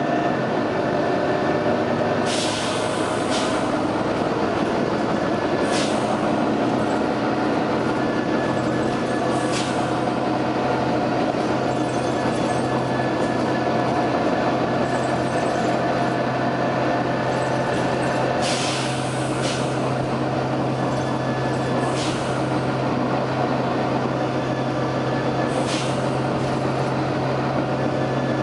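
Volvo B9TL double-decker bus's diesel engine running steadily with a low drone. Short hisses of released compressed air break in about eight times, two of them lasting about a second.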